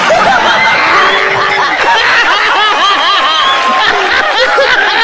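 A studio audience and a man laughing hard together, many voices at once, with hands clapping.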